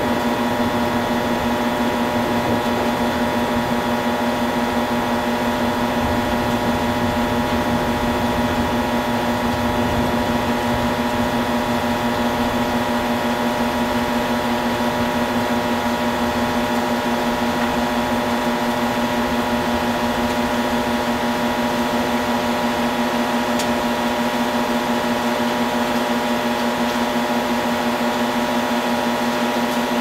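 Steady machine hum with several constant tones over an even hiss, unchanging throughout.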